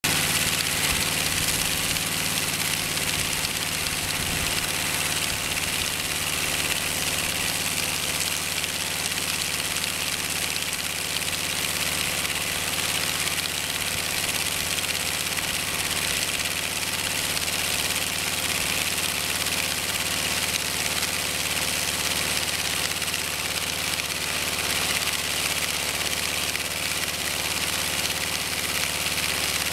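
Sawmill running steadily with its blade cutting along a squared log: a constant engine hum under a steady hiss of sawing.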